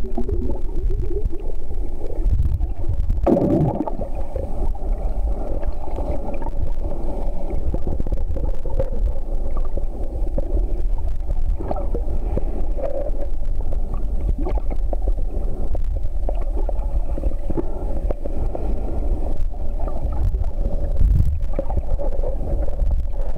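Muffled underwater sound picked up by a submerged camera: a steady low rumble of moving water with gurgling and a faint steady hum.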